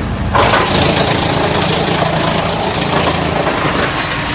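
HX218 drum wood chipper running, its steady machine hum joined about half a second in by a sudden, loud, dense noise of wood logs being cut into chips by the drum, which carries on.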